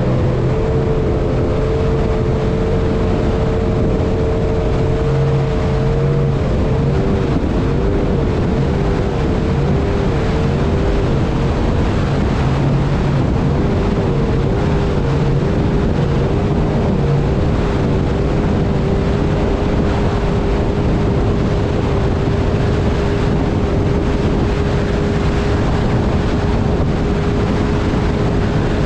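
Mercury XR2 outboard motor running steadily as the boat moves along, over a constant rush of water and wind. Its pitch wavers up and down about once a second for a stretch in the middle, then holds steady again.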